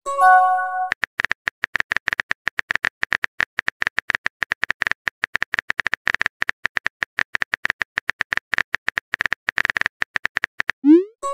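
Rapid phone-keyboard typing clicks from a texting-story app. Just after the start a short message chime of several steady notes sounds, and near the end a rising swoosh marks a message being sent.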